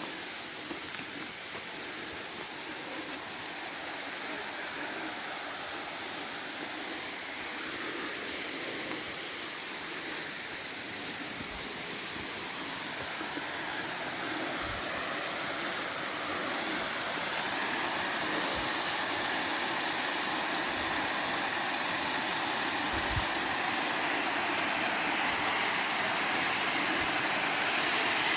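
The lower Little Mashel Falls rushing, a steady roar of falling water that grows gradually louder as it is approached.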